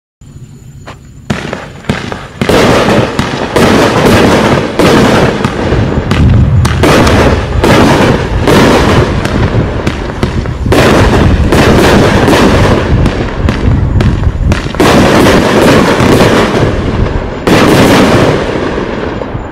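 Winda Fireworks 'Carolina Reaper' 500-gram, 20-shot fireworks cake firing. A fast, loud string of launch bangs and aerial bursts starts about a second in, with dense noise between the shots, and runs until near the end.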